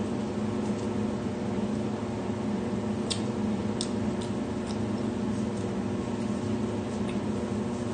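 Steady low mechanical hum of a household appliance or fan, with a few faint soft clicks from someone eating with their hands and chewing.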